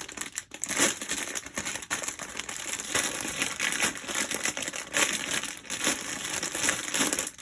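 Plastic LEGO parts bags crinkling and rustling as they are handled and sorted, in an irregular run of crackles.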